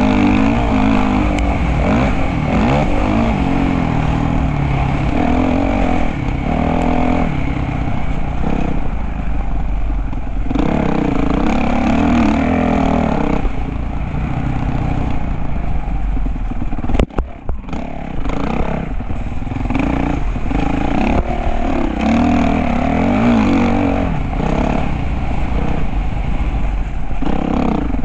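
Motocross dirt bike engine running hard, its pitch repeatedly rising and falling with the throttle and gear changes. A brief clatter of sharp knocks comes about two-thirds of the way through.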